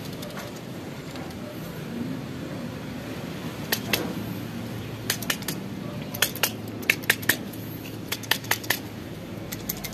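Scattered sharp clicks and light knocks in small clusters: a washing machine's water level sensor being handled, shaken and tapped to knock loose whatever may be clogging it.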